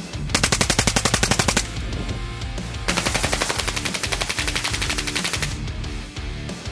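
AK-47 rifle firing 7.62×39 full-auto in two bursts of about ten shots a second, the first about a second long and the second about two and a half seconds, over background guitar music.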